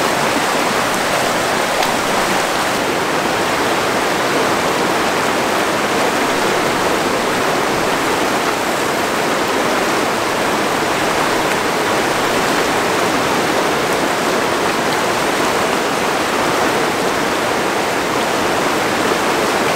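Fast-flowing mountain river rushing steadily.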